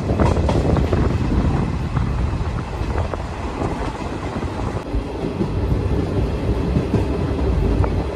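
Passenger train running at speed, heard from an open coach doorway: a steady rumble of wheels on the rails with occasional sharp clacks.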